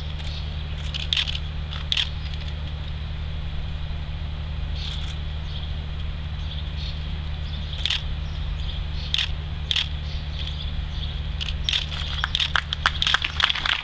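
Steady low hum with a few scattered sharp claps. About twelve seconds in, the clapping thickens into applause from the audience.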